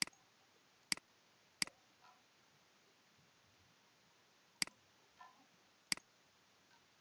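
Computer mouse button clicking: five sharp single clicks, three in the first two seconds and two more later on, over a faint steady hiss.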